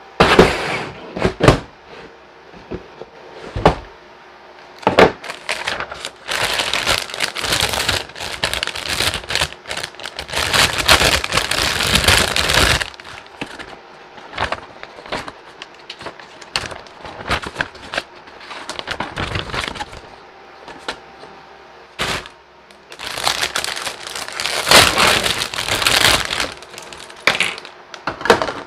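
Unpacking a plastic model kit: sharp knocks and clicks from the cardboard box and plastic parts runners on a table, and long stretches of crinkling as the paper instruction manual and the clear plastic bags around the runners are handled.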